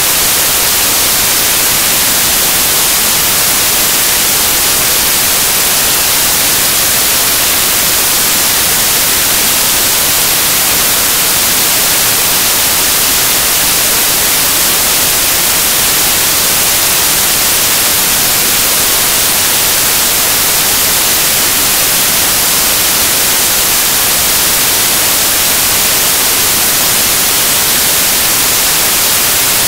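Loud, steady static hiss like white noise, cutting in suddenly out of dead silence with no speech or room sound under it: an audio fault in the recording or its encoding rather than anything in the room.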